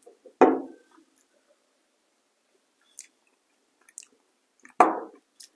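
Mouth sounds of someone tasting bourbon: two short smacks, about half a second and nearly five seconds in, with a few faint clicks between.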